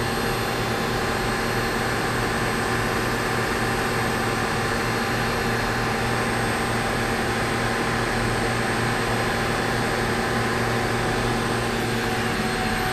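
Steady hum of machinery and ventilation on a machine-shop floor, with several fixed tones held throughout.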